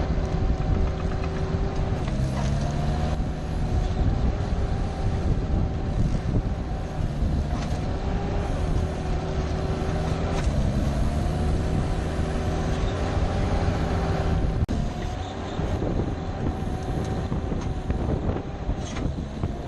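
Motor vehicle driving: a steady engine hum whose pitch shifts slightly now and then, over road and wind noise.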